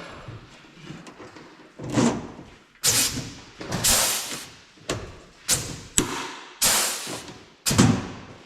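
A series of sharp knocks, about eight from two seconds in, each dying away quickly: blows struck on the cabover truck's body while a part is worked into place.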